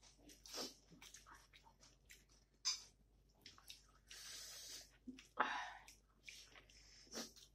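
Close-up eating sounds: wet chewing, lip smacks and mouth clicks, with squishing as rice and dal are mixed by hand, and a longer rustling hiss about four seconds in.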